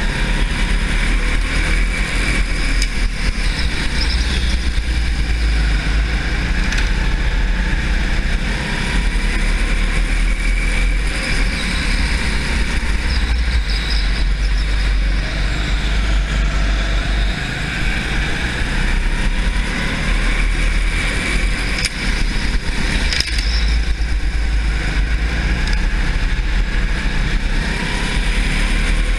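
Racing kart's motor running hard on track, its pitch rising and falling through the corners over a steady low rumble, as heard from the kart itself.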